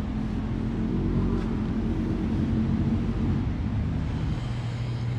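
Kawasaki KZ650's air-cooled inline-four engine running steadily at idle, its note settling lower about four seconds in.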